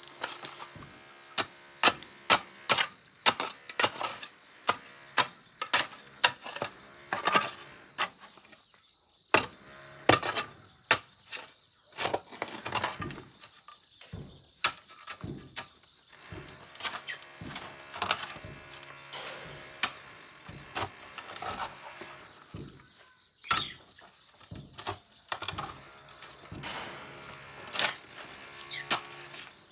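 A long run of irregular knocks and clicks, a few each second, some with short scrapes, over a steady high thin hum.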